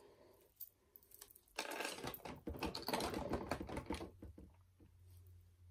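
Rapid clicking and clattering of small makeup items being handled, a dense run for a couple of seconds with a few scattered clicks either side.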